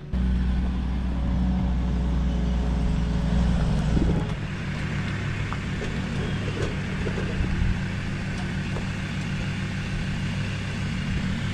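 An engine running steadily with a low rumble; its note drops about four seconds in.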